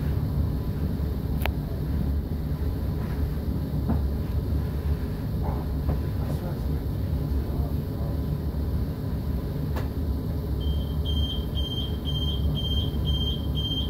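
Low, steady rumble inside a commuter train as it stands at a station platform, with a few light clicks. About ten seconds in, a rapid series of short high beeps starts, about three a second: the door warning tone.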